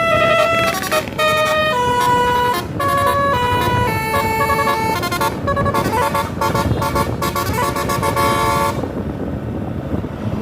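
A tour bus's basuri telolet horn plays a fast tune of short, changing notes, then stops abruptly near the end.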